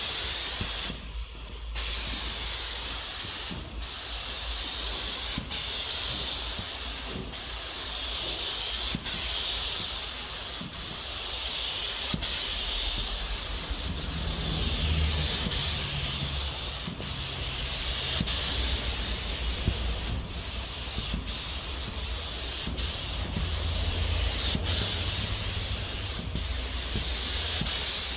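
HVLP gravity-feed paint spray gun running on compressed air: a steady loud hiss of air and atomised paint. It breaks off briefly about every second and a half to two seconds as the trigger is let go between passes.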